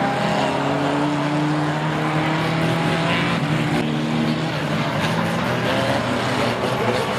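Several banger racing cars' engines revving at once, their pitch rising and falling as they race and push into each other.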